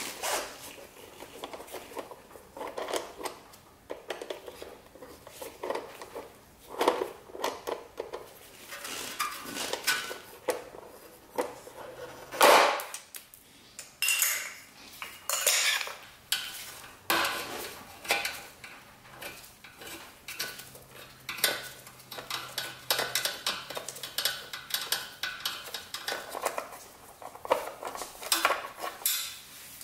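Irregular metallic clinks and rattles of a 5 mm hex key and steel bolts as the timing belt cover bolts are undone on a Ducati Monster 696 engine.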